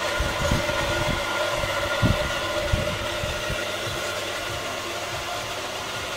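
Steady mechanical hum with a few soft low thumps in the first three seconds or so, the loudest about two seconds in.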